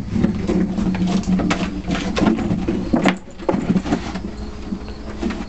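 A clear plastic bucket scraping and knocking over wooden deck boards, pushed about by a Bernese Mountain Dog puppy with his head inside it as he tries to get at the ball in it. There are many sharp knocks over a rough scraping sound, with a short lull about three seconds in.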